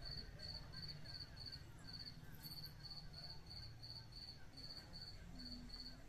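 Faint cricket chirping in an even rhythm of about four high chirps a second, over a low background hum.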